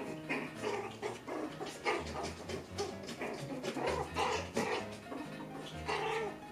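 Poodle puppies making short, repeated high cries, over background music with a steady bass line.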